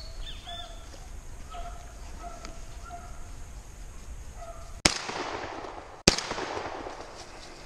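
Two shotgun shots about a second apart, each with a long echoing tail.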